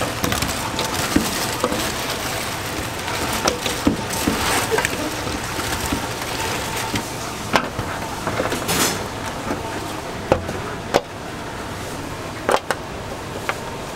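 Sauce-coated fried chicken being tossed by a gloved hand in a stainless steel bowl: wet, sticky squelching and shuffling, with a few sharp clicks and knocks from the metal bowl and tray over steady background noise.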